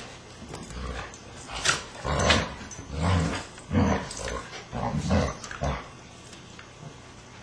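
Shiba Inu and Akita play-fighting: a run of about five loud, low growls between about one and a half and six seconds in, with a few sharp clicks among them.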